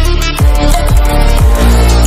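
Background music with a heavy electronic beat: deep bass notes that drop in pitch about once a second.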